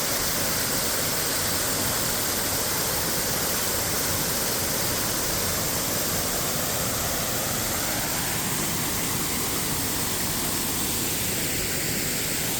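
Waterfall rushing: a steady, loud roar of falling water with no change in level.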